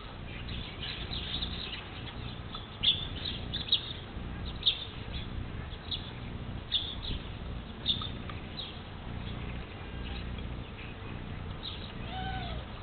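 A flock of starlings squabbling at a bird feeder: many short, high calls, some coming in quick bunches, scattered throughout. A low, steady rumble runs underneath.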